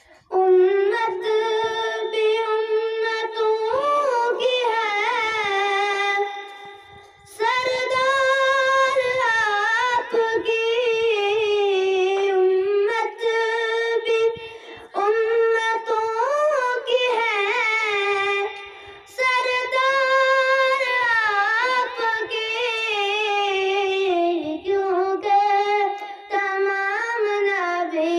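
A boy singing a devotional Urdu naat solo with no accompaniment, in long, ornamented, wavering phrases, pausing briefly for breath between them.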